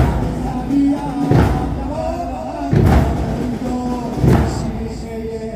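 Ashura mourning-procession music: a heavy drum beat about every second and a half, the beat of the chain-striking, under a lamenting voice held on long notes.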